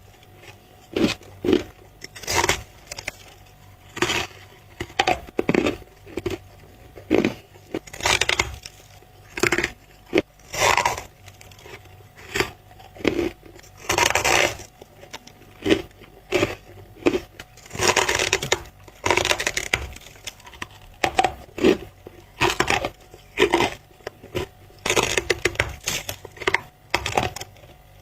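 Close-miked bites into squeaky white freezer frost: a long string of sharp, crisp crunches, one or two a second, some drawn out longer as the packed frost is crushed.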